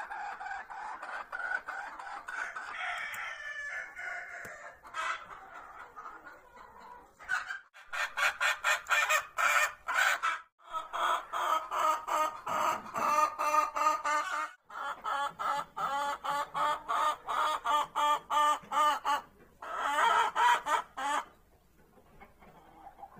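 Domestic chickens calling: a drawn-out call at the start, then long runs of rapid clucks, about five a second, from about eight seconds in, broken by short pauses.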